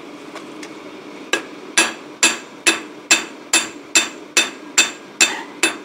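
Hand hammer striking heated steel from a cut-off spanner, held in pliers on an old hammer head used as a makeshift anvil. The blows start about a second in and come at an even pace of about two a second, each a sharp metal-on-metal strike with a short ring: the piece is being forged out while hot.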